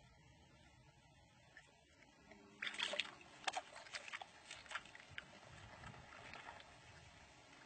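Shallow water splashing and sloshing around a wels catfish lying at the water's edge: a cluster of splashes starts about two and a half seconds in, then thins out into occasional smaller ones.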